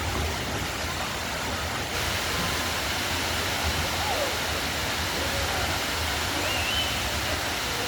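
Water pouring down an artificial waterfall: a steady, even rush.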